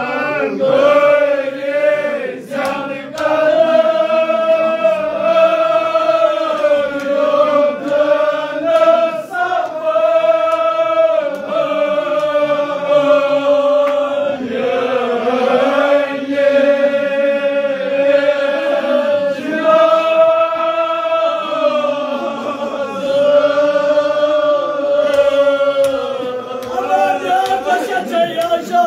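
Men's voices chanting a devotional lament together, without instruments. They sing in long held phrases of a few seconds each, with short breaks for breath between phrases.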